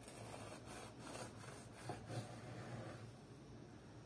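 Kitchen knife sawing back and forth through the baked crust of a ham-filled bread loaf, a faint rasping scrape with each stroke, several strokes a second, easing off after about two seconds.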